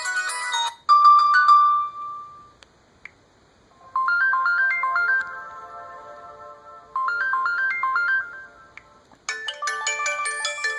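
LG Optimus L9 smartphone ringtones playing one after another. One ends within the first second, a short few-note tone rings out, and after a pause a short melody plays twice. A busier ringtone starts near the end, with faint clicks in the pauses between tones.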